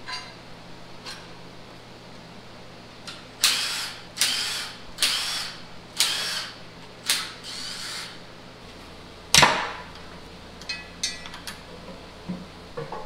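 Hand work on a Subaru boxer engine on an engine stand: about six short scraping, ratchet-like strokes roughly a second apart, then a single sharp metallic clank, with a few light clicks after it.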